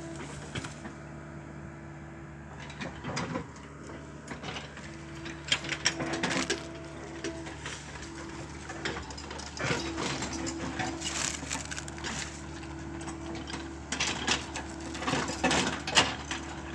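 Komatsu crawler excavator's diesel engine running steadily, with irregular cracks and clanks as it scrapes through soil, roots and branches.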